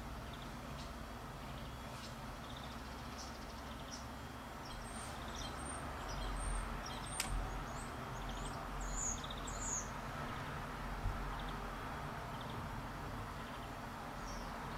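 Small songbirds calling outdoors with short, high chirps, most of them from about five to ten seconds in, over a steady background hiss. A single sharp click comes about seven seconds in.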